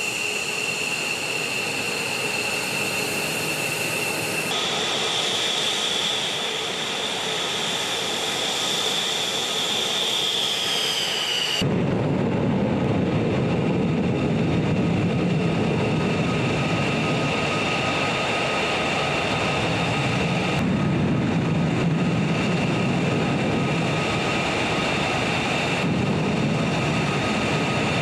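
F-15 fighter's jet engines running on the flight line with a steady high-pitched whine, then, after a sudden change about 11 seconds in, the steady roar of a fighter jet powering along the runway for takeoff.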